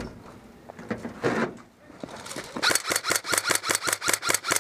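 An airsoft gun firing a rapid, even string of shots, about seven a second, starting a little over halfway through. A few scattered knocks come before it.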